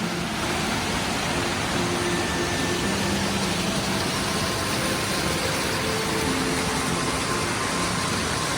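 Steady rushing of a waterfall and its rapid mountain stream, even and unbroken, with faint held musical notes underneath.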